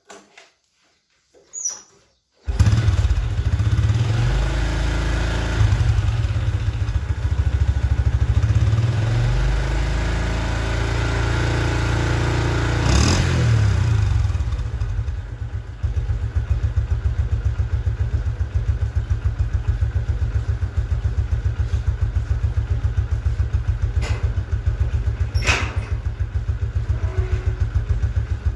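Old motorcycle engine that comes on suddenly about two and a half seconds in and runs fast and uneven for about twelve seconds. It then drops to a steady idle with an even pulse.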